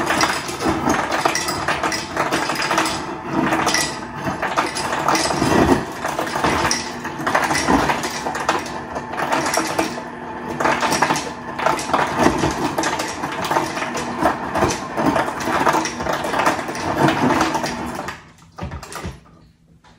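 Kitchen clatter while a drink is mixed: continuous rattling and clinking that stops near the end.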